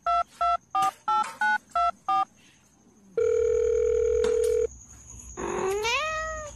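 Telephone keypad tones: a quick run of about seven short two-note beeps. After a pause comes a long steady phone tone lasting about a second and a half, and near the end a drawn-out rising, wavering vocal call.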